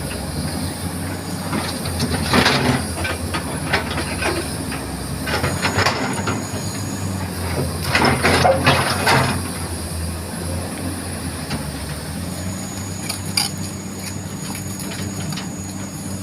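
Komatsu hydraulic excavator's diesel engine running steadily, with several bursts of metallic clanking and scraping as the machine works mud.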